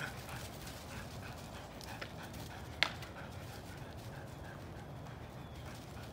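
A dog panting in a quick, even rhythm of about four pants a second, fading after about three seconds. One sharp click comes a little before the middle.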